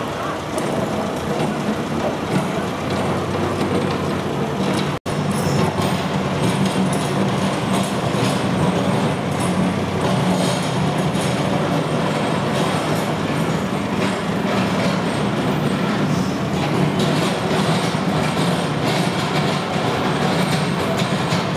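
Steady running noise of a vehicle in motion, with a low hum, broken by a momentary dropout about five seconds in.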